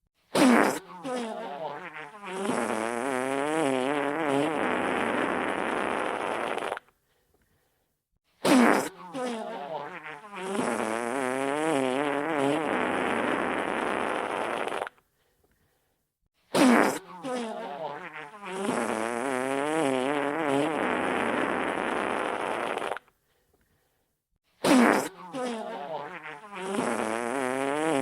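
Wet fart sound effect: a sudden loud start, then a long wavering, sputtering fart lasting about six seconds. It repeats as a loop four times, with short silences between.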